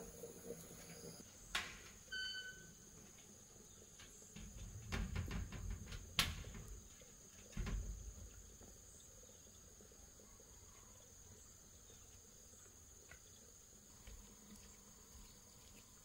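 Insects chirring steadily in a high, even band. A few knocks and low thuds fall in the first half, along with a short high note about two seconds in.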